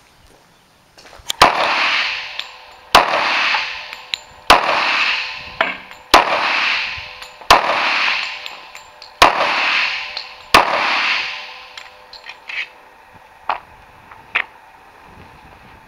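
Kimber .45 ACP pistol fired seven times, about one shot every second and a half, each shot ringing out in a long echo. A few faint clicks follow near the end.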